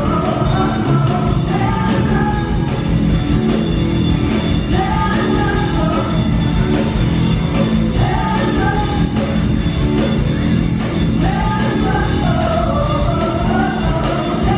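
Loud rock music with a singing voice, playing steadily.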